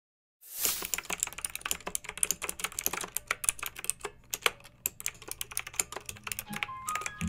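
Rapid, irregular clicking, several clicks a second, starting after a brief silence at the beginning.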